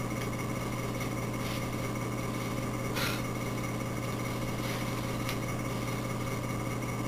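A steady low machine hum, with a few faint clicks, the clearest about three seconds in.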